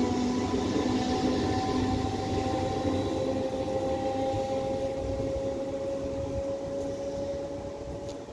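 An electric multiple-unit train moving away. A few steady whining tones slide slightly lower in pitch over the rumble of the wheels, and the whole sound fades steadily as the train recedes.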